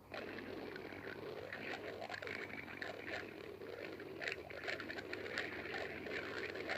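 Stomach growling and gurgling: a continuous, irregular bubbly churning that starts abruptly.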